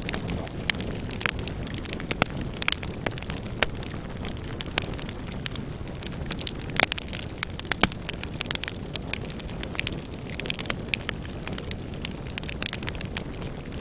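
A fire burning, with a steady low rumble and many irregular sharp crackles and pops.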